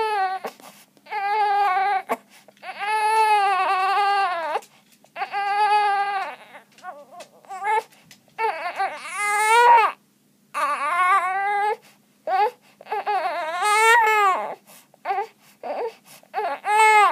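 Infant crying during tummy time: a string of cries, each about one to two seconds long, rising and falling in pitch, with short breaths between.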